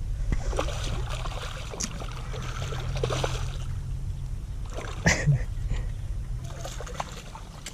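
Water splashing and sloshing as a hooked yisok (Jullien's golden carp) struggles at the surface, with scattered small knocks and a sharper knock about five seconds in, over a low steady hum.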